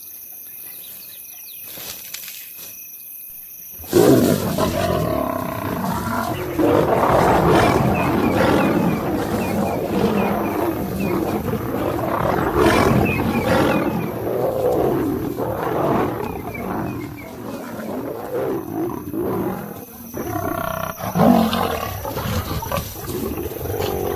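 Crickets chirping in a quiet night, then about four seconds in, lions suddenly break into loud snarling and roaring that keeps going: a fight between a charging male lion and lionesses defending their cubs.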